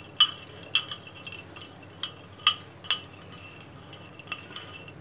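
Metal spoon stirring raw peanuts coated in oil and spice powder in a glass dish, making irregular sharp clinks against the glass, the loudest about a quarter second in.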